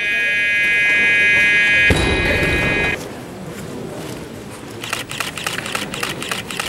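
An electronic down-signal buzzer sounds for about three seconds, its tone changing about two seconds in, telling the lifter to lower the bar. A barbell loaded with bumper plates is dropped onto the lifting platform with a heavy thud. A patter of sharp clicks follows near the end.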